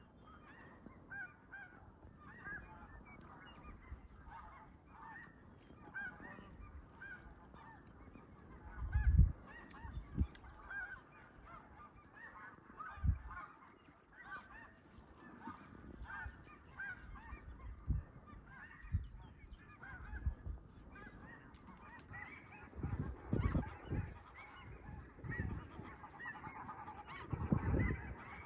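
Snow geese calling, many at once: a dense, continuous chatter of short high honks. Low thumps break in now and then, the loudest about nine seconds in.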